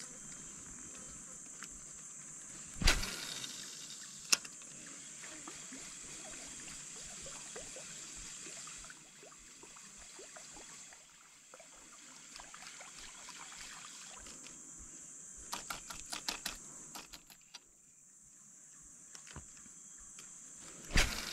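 Insects buzzing steadily in a high, unbroken drone over swamp ambience. A loud sudden thump comes about three seconds in and another near the end, with a quick run of clicks and knocks a little past the middle.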